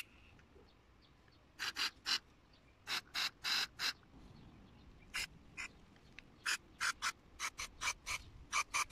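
Carburetor cleaner sprayed from an aerosol can through its red straw into a Honda GX160 carburetor, in about twenty short hissing sprays. The sprays come in quick runs and are thickest near the end.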